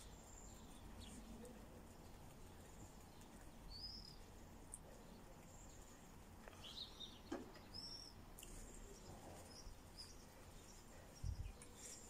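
Near silence around guinea pigs feeding on a pile of fresh grass: faint rustling and small clicks, with a few short high chirps between about four and eight seconds in. A soft low bump comes near the end.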